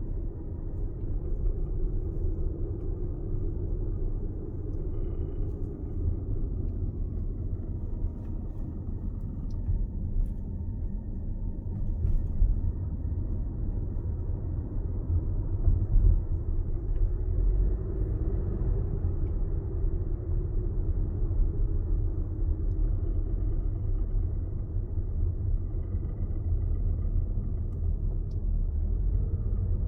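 2021 Toyota RAV4 Prime XSE rumbling low and steady on the move, with a few faint sharp taps or clicks scattered through it. The tapping is the fault that Toyota traced to the center wheel bearing support.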